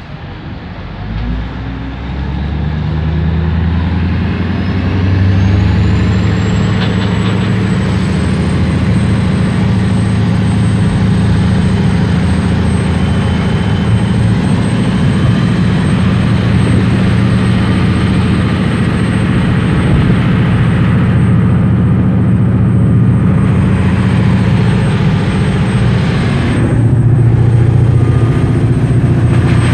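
Sardine fishing boat's engine revving up over the first few seconds, then running steadily and loud while the boat is under way through rough water.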